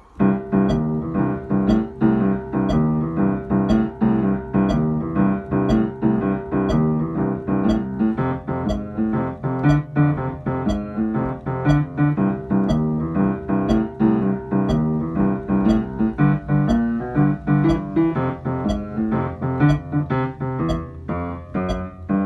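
Kemble upright piano played with the left hand alone: a repeating boogie-woogie bass riff. A metronome clicks steadily throughout.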